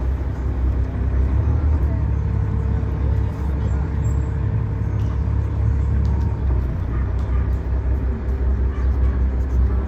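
Boat's engine running steadily, a low rumble under the ride.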